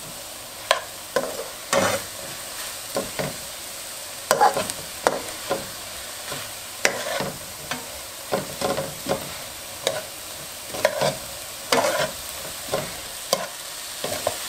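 Chopped onions sizzling in hot oil in a caldero, stirred constantly with irregular scraping strokes about one or two a second over a steady frying hiss. The onions are being sautéed until they soften and take colour.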